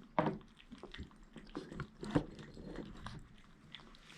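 Kittens eating, a run of small wet chewing clicks close to the microphone, with a louder knock near the start and another about two seconds in.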